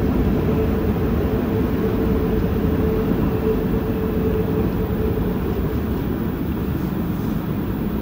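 Montreal Metro AZUR rubber-tyred train running through the tunnel and slowing into a station. A steady rumble of wheels and running gear, with a steady hum that fades out about halfway through, the whole growing slightly quieter.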